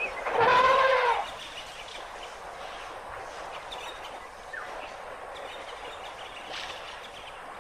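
An African elephant trumpets once, a loud call about a second long that bends in pitch, just after the start. A steady low background hiss follows.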